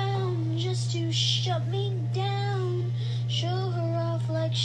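Song: a high singing voice holds long, sliding notes, with a few hissing consonants, over a steady low bass tone.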